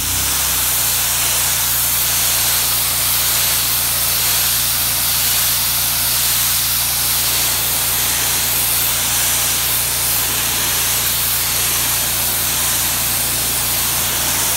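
Kranzle K1322TS electric pressure washer spraying a jet of water onto a concrete walkway: a loud, steady hiss of spray with a steady low hum underneath.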